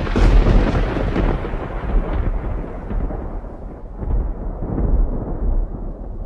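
A sudden loud crash that rolls into a deep, long rumble, like thunder. The upper hiss dies away over several seconds while the low rumble keeps swelling and ebbing.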